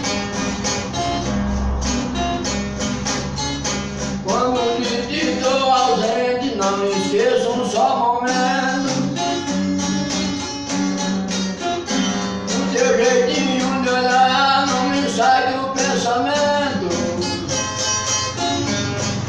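Brazilian viola (viola caipira) played solo: a plucked, gliding melody over rhythmic strummed chords and sustained low bass notes.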